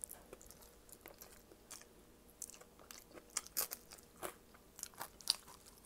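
Close-up mouth sounds of a person eating shrimp and vegetables in coconut sauce by hand: chewing with many small, sharp crunches, which come thicker and louder in the second half.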